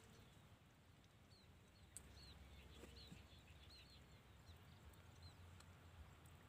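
Near silence, with a small bird faintly chirping a quick run of short, high notes, about three a second, for a few seconds, and a light click about two seconds in.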